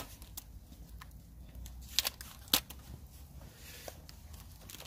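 Small wood campfire crackling, with irregular sharp pops from the burning sticks; the loudest two come about two seconds in, half a second apart.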